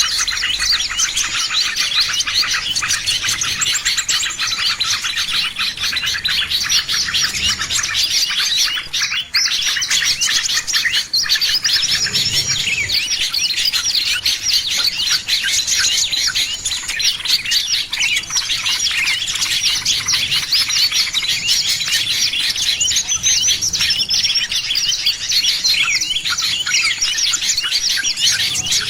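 A dense chorus of many small songbirds chirping and twittering at once, rapid high chirps overlapping without a break, with a brief lull about nine seconds in. It is a bird-lure call track of the kind played to draw small birds in.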